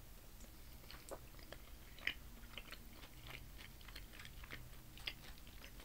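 A person biting into and chewing a piece of fried plantain, with faint, scattered wet mouth clicks.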